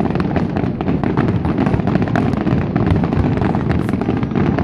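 Fireworks going off in a dense, rapid barrage of bangs and crackles over a steady low rumble.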